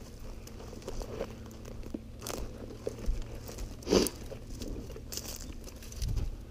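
Footsteps crunching on dry ground and through dry brush, with rustling and crackling of dry stems, in irregular bursts; one sharper, louder crunch about four seconds in.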